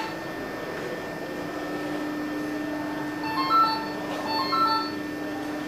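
A steady electrical hum, with two short runs of electronic beeps a little after three and four seconds in, each stepping up over three notes like a small jingle.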